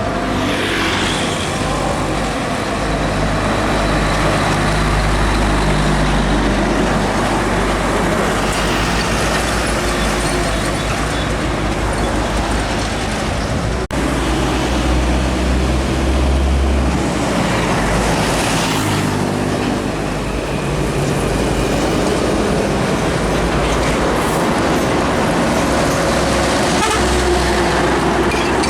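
Heavy diesel trucks passing on a road, their engines rumbling with tyre and traffic noise. The rumble swells as trucks go by and breaks off abruptly about halfway through before carrying on.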